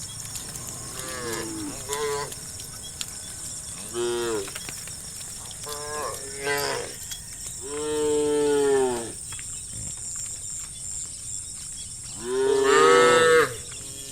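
Cows mooing in turn, about seven separate calls, each falling in pitch. A long moo comes near the middle and the loudest one near the end.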